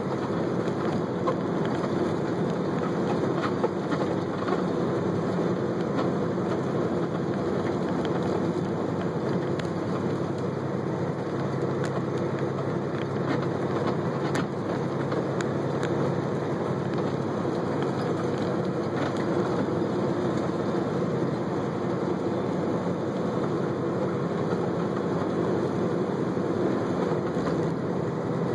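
Steady road noise and engine hum heard from inside a moving car's cabin, with no change in pace through the stretch.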